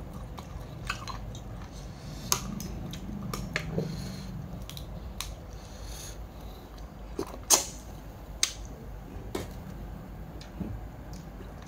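Someone eating mud crab: chewing with scattered sharp clicks and cracks as the crab shell is bitten and handled, the loudest about seven and a half seconds in.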